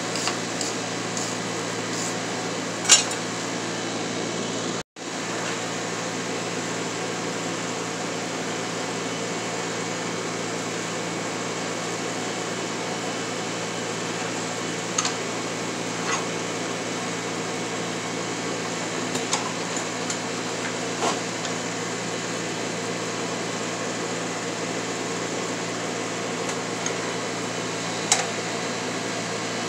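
Forge running with a steady rush of air and a low hum, with a few light metal clinks as a wrench twists a hot bar held in a vise. The sound cuts out for an instant about five seconds in.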